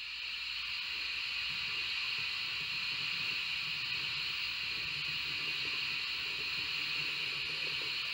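Steady hiss over a low rumble: a model steam locomotive rolling along the layout's track, its motor and wheels running evenly.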